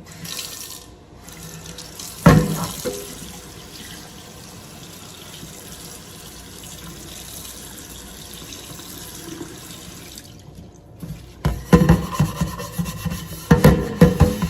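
Kitchen sink tap running, a steady rush of water, with a single sharp knock about two seconds in. Background music with a beat comes in near the end.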